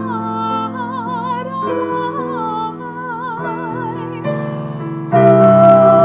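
Women's choir with keyboard accompaniment: a single woman's voice sings a slow line with vibrato over sustained piano chords. About five seconds in, the other voices come in together and the sound grows louder and fuller.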